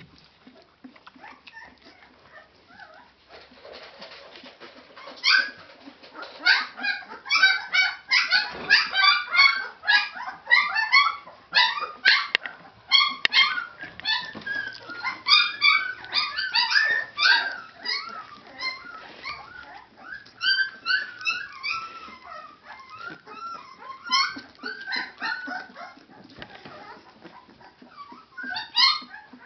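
Thirteen-day-old Leonberger puppies squeaking and whining: a rapid string of short high-pitched cries that starts about five seconds in and goes on until near the end.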